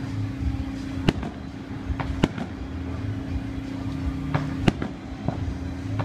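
Aerial fireworks shells bursting: three sharp bangs a second or two apart, with fainter pops in between.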